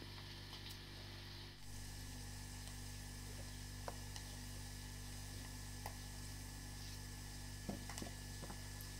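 Faint clicks and scrapes of a kitchen knife peeling a potato, a few scattered strokes, over a steady low hum.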